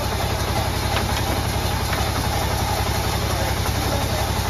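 Sawmill band saw running steadily while a large log is fed through the blade and sawn lengthwise, with a low, even machine rumble underneath.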